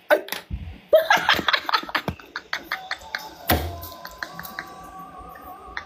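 A person laughing in short bursts, followed by scattered light taps and clicks with one heavier thump about three and a half seconds in.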